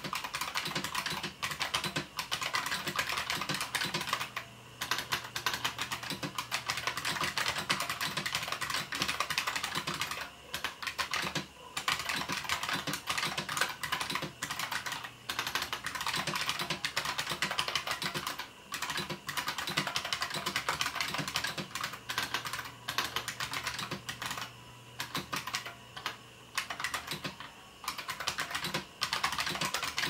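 Fast, continuous typing on a bolt-modded IBM Model M Space Saving Keyboard, its buckling-spring keys clicking in a dense stream with short pauses every few seconds.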